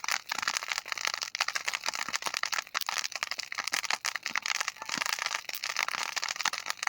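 Burning grass crackling and popping continuously, a dense run of rapid irregular snaps like firecrackers going off.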